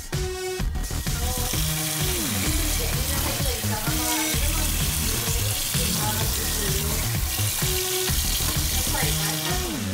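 Tap water running steadily into a bowl of cut long beans in a stainless steel sink, a hiss that starts about a second in and stops just before the end. Electronic background music plays underneath.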